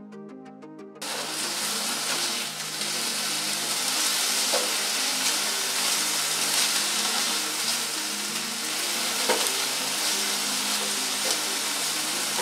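Chunks of rabbit meat frying in butter in a pan: a steady sizzle that starts suddenly about a second in, with the occasional scrape of a spatula stirring the meat.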